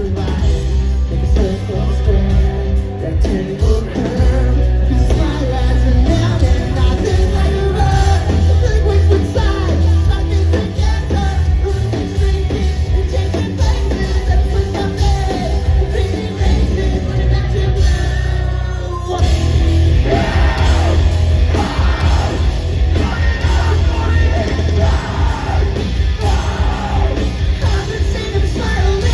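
Live rock band playing in a large hall: drums, bass and guitars with a lead vocal singing over them. About two-thirds of the way in the music dips for a moment, then the next section comes in.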